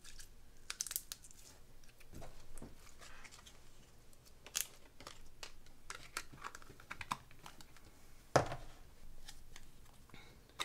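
Hands kneading and stretching slime: irregular sticky clicks, crackles and small pops, with one louder smack about eight seconds in.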